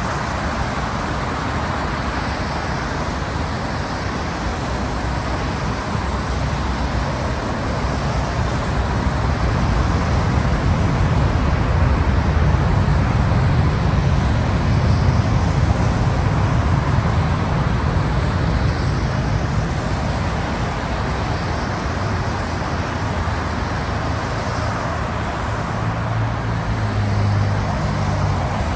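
Road traffic on a rain-soaked road: tyres hissing through standing water in a steady wash, with a low rumble swelling in the middle as heavier vehicles pass. Near the end a low engine hum rises over the hiss.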